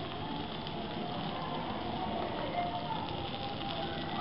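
Hot sizzler plate sizzling steadily as sauce is spooned onto it.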